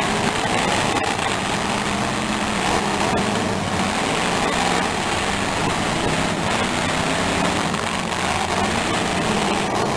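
Demolition derby car engines running steadily, a continuous engine drone with no distinct impacts.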